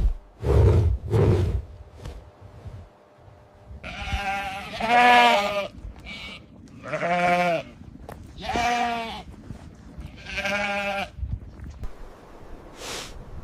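A farm animal bleating four times, each a long wavering call, starting about four seconds in. There are a few dull thumps near the start.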